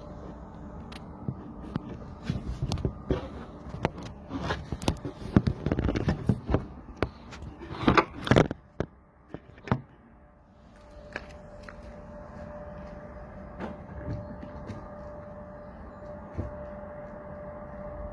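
Irregular knocks and clunks for about the first nine seconds. From about ten seconds in, a steady even running sound with a held tone follows: a Renault 2.0 dCi four-cylinder diesel idling after a cold start.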